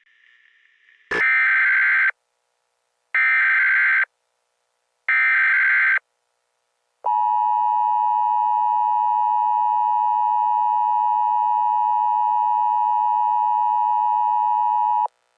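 Emergency Alert System header: after a second of faint static, three one-second bursts of digital data tones about a second apart, then the EAS attention tone held steady for about eight seconds and cut off abruptly.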